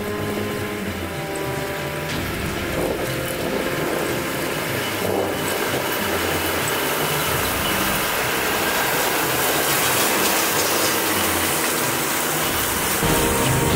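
Tractor engine running as it tows a twin-rotor rotary hay rake past, the noise growing steadily louder as the machine comes close.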